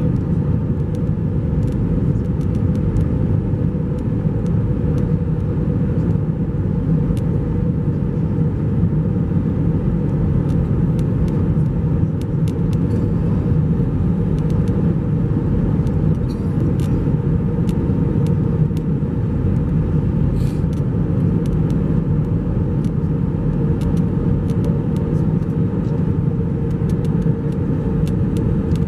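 Airbus A321-231 cabin noise on the descent to land, heard from a window seat over the wing: the steady rumble of its IAE V2500 engines and the rushing air, with a faint steady hum and a few faint ticks.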